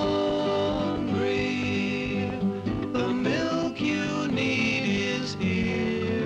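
Music: a country-style tune with guitar, its melody sliding up and down in pitch.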